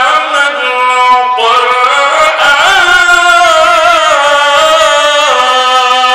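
A man's voice reciting the Quran in Arabic in a drawn-out, melodic chant, through a microphone. Long held notes with wavering ornaments; the pitch steps up about a second and a half in and drops back near the end.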